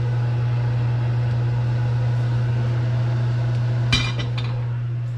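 A steady low hum from the stove area, with a brief clatter of metal cookware on the range about four seconds in.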